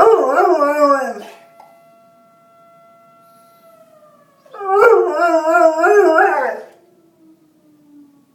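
Bernese Mountain Dog howling at a fire alarm. The first howl is short, wavering and falling in pitch; the second comes about four and a half seconds in and is longer and wavering. A faint steady tone hangs between the two howls.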